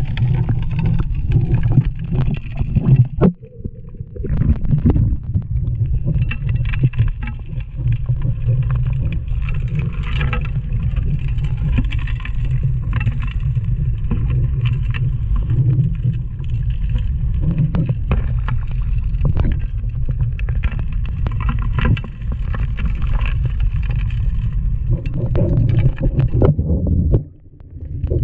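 A 6-inch suction gold dredge heard from underwater, muffled through the camera's waterproof case: a steady low rumble with frequent clicks and knocks of gravel being drawn into the suction nozzle. The rumble drops away briefly about three seconds in and again near the end.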